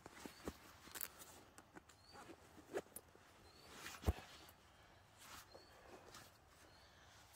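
Faint rustling and scuffing of clothing and a sock being pulled off a foot, in short irregular bursts, with one sharp knock about four seconds in.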